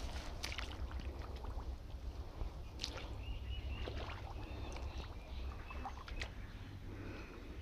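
Water sloshing and splashing in a shallow, muddy creek, with several small splashes and drips, over a steady low rumble on the microphone. A few short bird chirps sound now and then.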